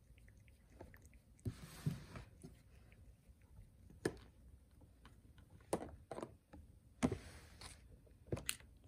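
A cat licking at a small plastic treat dish and nudging it across a carpet: faint scattered clicks and taps, with two short scraping rustles, one about two seconds in and one about seven seconds in.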